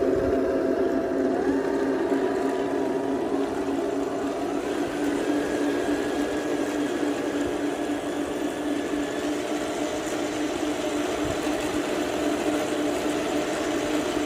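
Radio-controlled model Leopard 2A6 tank driving on grass: a steady electric whir from its drive motors and gearboxes, with a whine that rises in pitch about a second and a half in and again around five seconds in.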